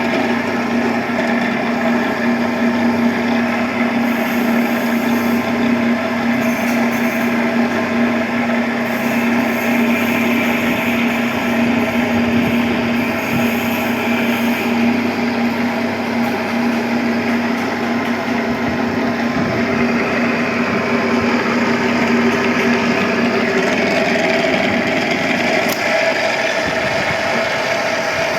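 Electric pipe threading machine running steadily with a continuous motor hum, cutting threads on an iron pipe.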